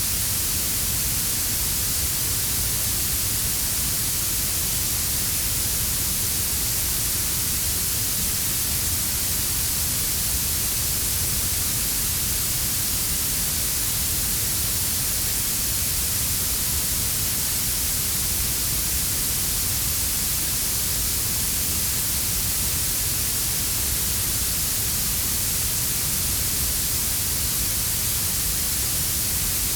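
Synthetic warm blue noise: a steady, bright hiss strongest in the highest frequencies, layered over a quieter brown-noise rumble at the bottom, unchanging throughout.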